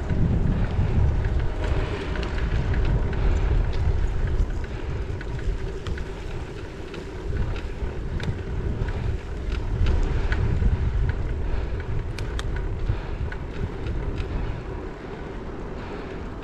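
Wind buffeting the microphone of a head-mounted action camera on a moving bicycle: a gusting low rumble that rises and falls, over road and tyre noise with scattered small clicks.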